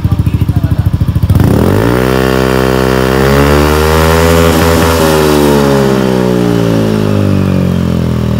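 Yamaha NMAX scooter's single-cylinder four-stroke engine running through a PR2 carbon-fiber full exhaust. It idles with a rapid putter, then is revved a little over a second in: the pitch climbs quickly, keeps rising for a few seconds, and slowly falls as the throttle eases off.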